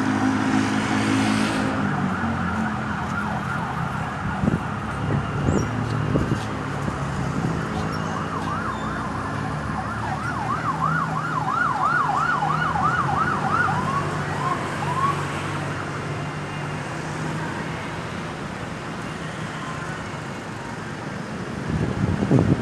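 Emergency vehicle siren in a fast yelp, rising and falling about twice a second for several seconds midway, then trailing off, over steady traffic and engine noise. A few knocks sound before it.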